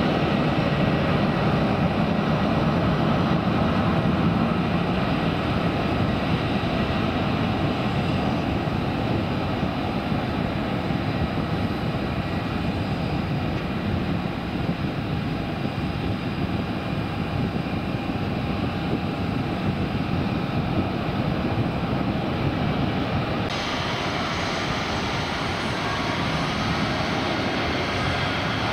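Airliner engines running on the airfield: a steady rumble and rush of engine noise with a faint steady high whine. The higher part of the sound changes abruptly about 23 seconds in.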